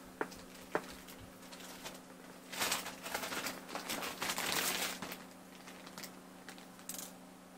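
A few light clicks, then about two seconds of crinkling, rustling handling noise, over a faint steady low hum.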